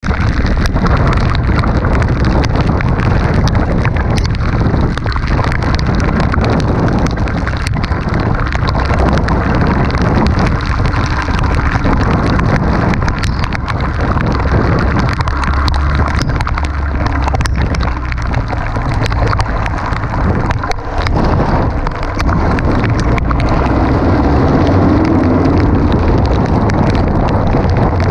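Heavy rain and wind buffeting on the microphone of a car driving through a rainstorm, with a constant low rumble and many sharp ticks of raindrops striking.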